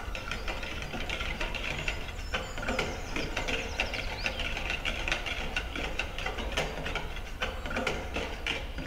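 Wire whisk beating a thin binder-water glaze with colour concentrate in a plastic bucket: quick, irregular clicking and swishing of the wires against the bucket wall and through the liquid, over a low steady hum.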